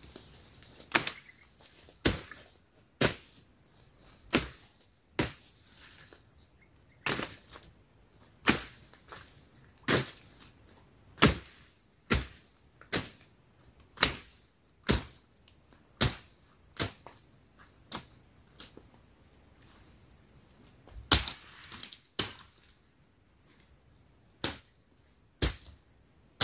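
Machete strokes slashing through undergrowth, a sharp chop about once a second with a short pause near the end, over a steady high-pitched drone of crickets.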